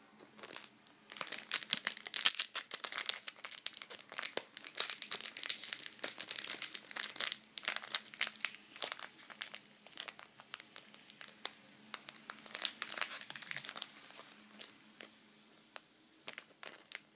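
Pokémon booster pack wrapper crinkling and crackling as it is worked and torn open by hand, a dense run of sharp crackles that thins out near the end; the pack is hard to open.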